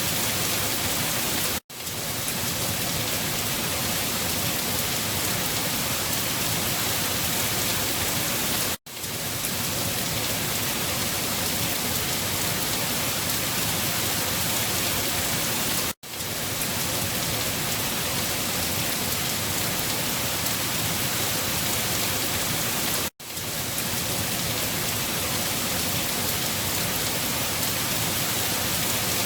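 Steady, dense rainfall. The sound cuts out for a split second about every seven seconds, where the looped rain recording restarts.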